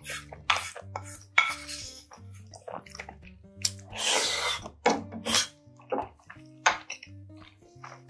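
Mukbang eating sounds: a wooden ladle and chopsticks clicking against a ceramic bowl, and a long slurp of noodles about four seconds in, with wet chewing between. Soft background music runs underneath.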